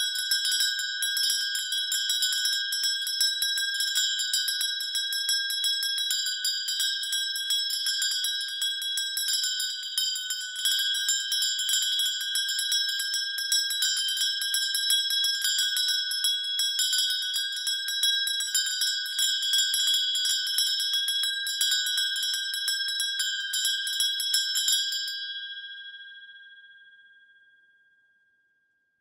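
A small metal bell ringing continuously with very rapid strokes of its clapper, holding a clear high ring. The strokes stop near the end and the bell rings out, fading to silence.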